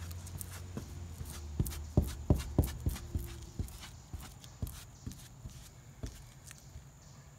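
Irregular soft taps and knocks from hand work on a plywood boat deck, several in quick succession about two seconds in and sparser after. A low steady hum runs under the first half.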